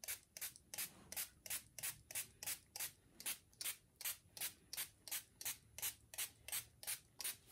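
Small plastic spray bottle squirting water in short, even hisses, pumped about three times a second, wetting water-soluble embroidery stabilizer so it dissolves.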